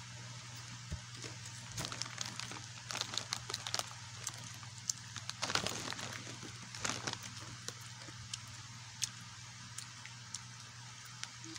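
Scattered crunchy crackles and clicks of snack chips being eaten and handled close to the microphone, busiest in two clusters around the middle, over a steady low hum.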